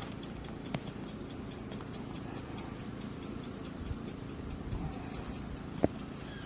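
Honeybees buzzing around an open hive as a steady hum. Through it runs a fast, even, high ticking, about five or six ticks a second. There is a small click about a second in and a sharper, louder click near the end, from the hive being worked.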